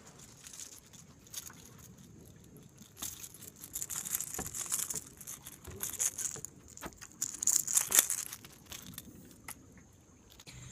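Jangling, clattering noise of a caught perch on a rattle trap lure being handled, the lure's rattles and treble hooks clicking, in bursts about three to five seconds in and again near eight seconds.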